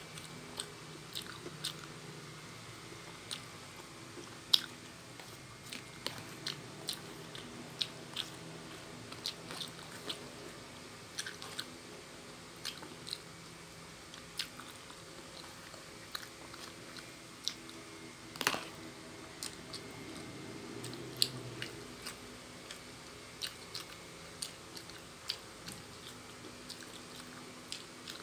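Close-miked eating of noodles: chewing with frequent sharp, irregular mouth clicks and smacks, and one louder sound about eighteen seconds in. A faint steady hum runs underneath.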